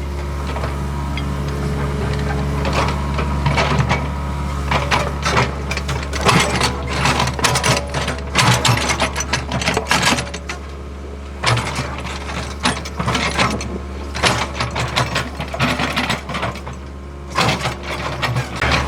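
Hitachi ZAXIS75UR compact excavator working, its diesel engine running with a steady low drone under a dense, irregular clatter of metal knocks and rattles.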